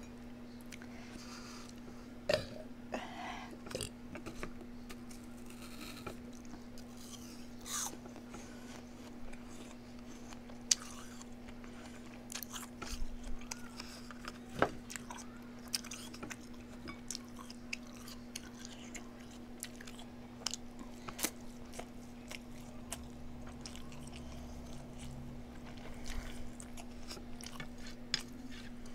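A person eating close to the microphone: biting and chewing with crunchy, wet mouth sounds, many short clicks and smacks spread irregularly, over a steady low hum.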